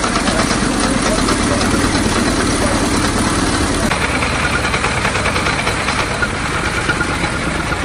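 Engine of a veteran car built around 1900 running with a fast, even beat, idling as it waits to move off; its tone changes about four seconds in.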